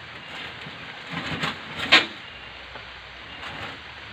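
Large potted bougainvillea being shifted by hand on a pickup truck's bed: branches and leaves rustling, with a few knocks, the loudest a sharp one about two seconds in.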